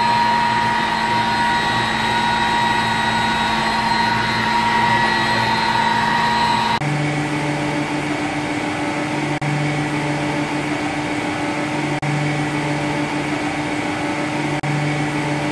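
Electric swimming-pool circulation pumps running, a steady motor hum with a high whine. About seven seconds in it changes abruptly to another bank of pumps with a lower hum that swells and fades every couple of seconds.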